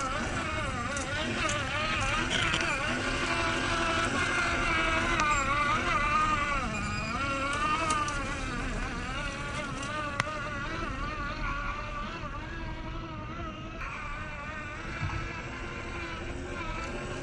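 Small electric motor and gearbox of a WPL C94 RC car whining, its pitch rising and falling with the throttle, louder in the first half and a little quieter in the second.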